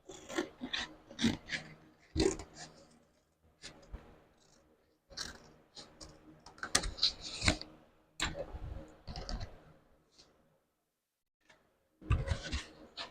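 Irregular clatter, clicks and scrapes of metal parts and hand tools being handled, in short bursts with pauses between them.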